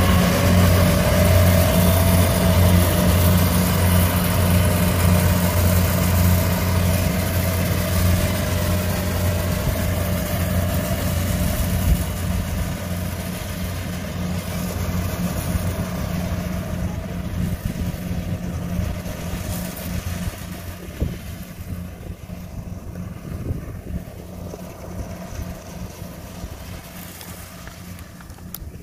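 Kubota rice combine harvester's engine running under load as it harvests, a steady low drone that fades gradually as the machine gets farther away.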